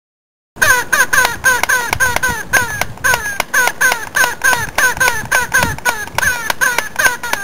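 Rapid gunfire sound effect: a string of sharp shots about four a second, each with a short falling tone, starting about half a second in.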